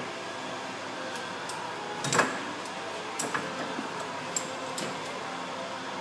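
Metal clicks and clinks of a strut spring compressor's hooks and threaded rod being set against a front strut's coil spring, with one louder clank about two seconds in. A steady background hum runs underneath.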